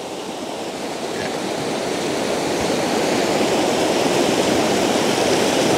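Rushing river water: a steady noisy rush that grows gradually louder.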